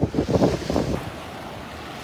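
Wind buffeting the microphone in gusts during the first second, over small surf washing up onto a sandy shore.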